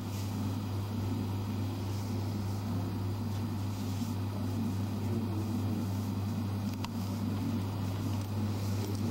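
Steady low electrical hum with a steady higher overtone, over faint background hiss. One small click about two-thirds of the way through.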